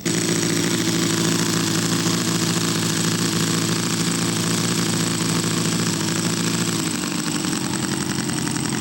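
Model airplane engine running steadily at low throttle, its pitch dipping slightly about seven seconds in.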